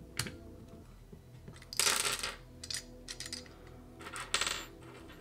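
Small metal parts from a disassembled AC contactor (screws and copper contact pieces) clinking and clattering onto a tabletop in several short spells, the loudest about two seconds in.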